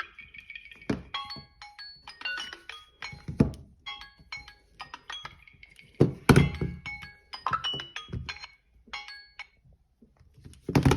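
Samsung Galaxy phone alarm and timer tones: short bright chiming notes repeating in quick patterns. Several dull thumps cut across them, the loudest about six seconds in and near the end.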